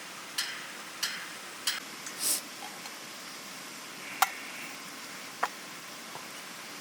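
Wood fire crackling: a handful of sharp, irregular pops and snaps, one a short hissing spit, over a steady soft hiss.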